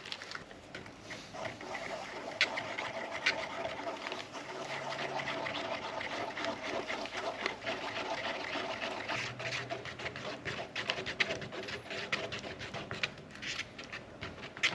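Hot boiled water mixed into instant potato stew in a bowl: liquid sloshing and running, with many small clicks and scrapes throughout.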